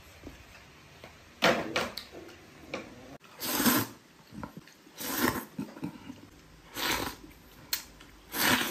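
A person slurping wide flat noodles from a bowl: five short, noisy slurps, roughly every one and a half to two seconds.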